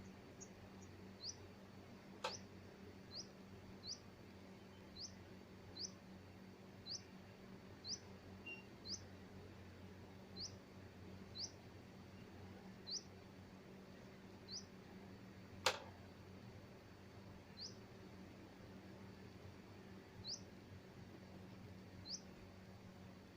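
A small animal chirping: short, high, rising chirps, about one a second at first and more spaced out later, over a faint steady low hum, with two sharp clicks, the louder one about two-thirds of the way through.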